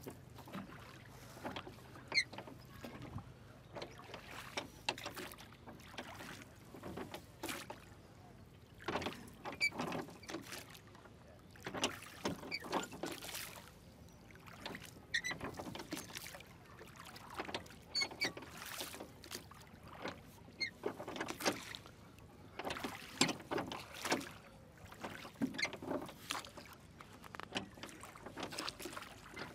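Wooden oars of a rowing boat dipping and splashing and knocking in their rowlocks, a stroke every two to three seconds.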